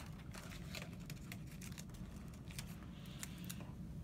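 Paper and drafting tape being handled as a plan sheet is taped down on a drafting table: a string of light, irregular clicks and taps over a steady low hum.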